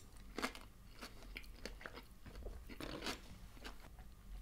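A person chewing a mouthful of sushi: faint, irregular short clicks of the mouth.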